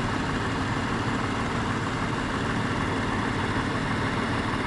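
1996 Jeep Grand Cherokee's 4.0-litre inline-six engine idling steadily.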